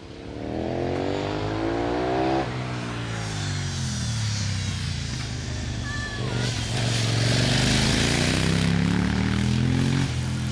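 A solo racing motorcycle's engine at full throttle. It rises in pitch, then is shut off sharply about two seconds in and falls away as the bike slows for a bend. It picks up and rises again through the second half, then drops once more near the end.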